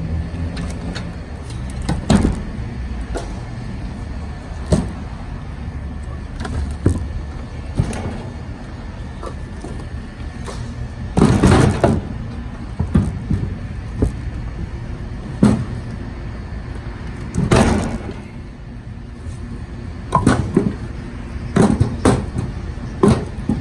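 Split hickory firewood logs being lifted from a trailer bed and dropped onto a stack: irregular wooden knocks and clunks, with longer clattering bursts about eleven seconds in and again near eighteen seconds. A steady low rumble runs underneath.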